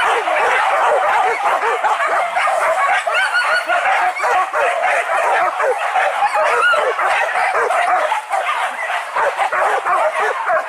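Pack of hunting dogs barking and yelping without a break, many short overlapping calls at once.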